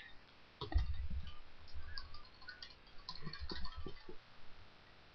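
Typing on a computer keyboard: a quick, uneven run of keystrokes with dull thumps, starting about a second in and stopping after about four seconds.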